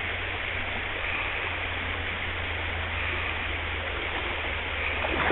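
Shallow river water running over rocks and an old stone weir line, a steady rush of riffling current.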